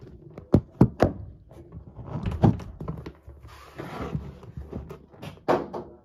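Several sharp knocks and thumps at uneven intervals, with a short rustle a little past the middle.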